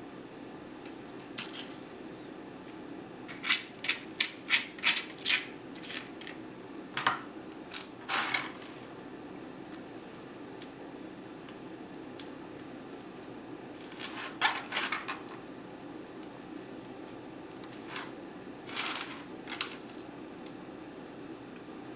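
Small kitchen objects being handled: several short runs of light clicks and clatters, over a steady low hum.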